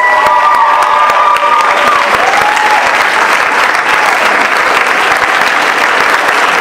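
Audience and cast applauding, a dense steady clapping, with a few long held cheering calls over it in the first couple of seconds.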